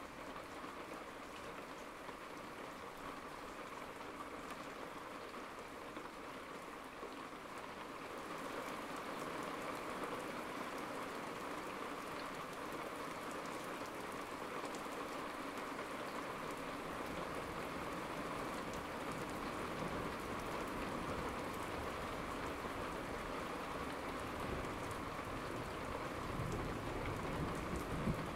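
Rain falling steadily as a continuous hiss, growing a little louder about eight seconds in. A low rumble of thunder builds near the end.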